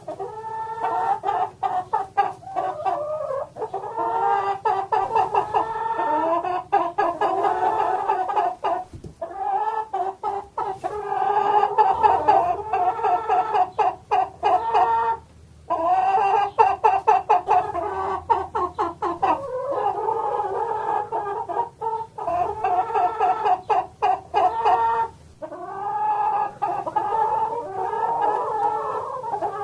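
Hens clucking in quick, continuous runs of pitched calls, broken by a few short pauses.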